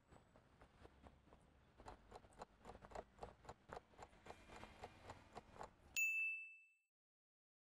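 Countdown-timer sound effect: a clock ticking quickly, several ticks a second and growing louder, then a single bell ding about six seconds in that marks time running out.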